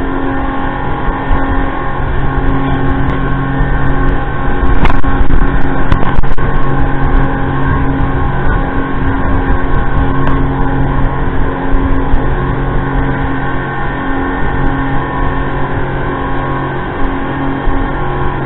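Speedboat running at speed: a steady engine hum with the rush of spray and wind along the hull. It grows louder with a few sharp knocks about five to six seconds in.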